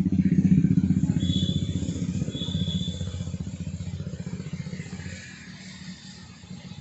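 A motor vehicle engine running nearby, a low pulsing rumble that is loudest at first and fades away steadily as the vehicle moves off.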